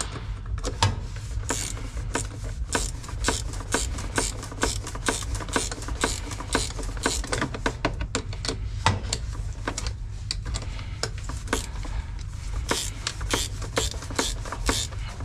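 Ratchet wrench clicking in short irregular runs as battery cable terminal nuts are tightened down, over a low steady hum.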